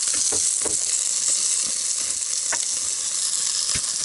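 Meat cutlets and sliced potatoes sizzling on a portable gas grill: a steady frying hiss with scattered small pops and crackles.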